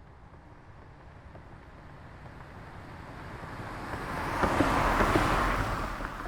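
A car driving past: it approaches with steadily growing sound, is loudest about five seconds in, then quickly falls away near the end.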